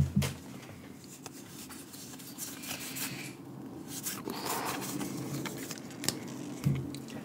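Pokémon trading cards and a foil booster-pack wrapper being handled: quiet rustling and crinkling, with a soft knock at the start and another near the end.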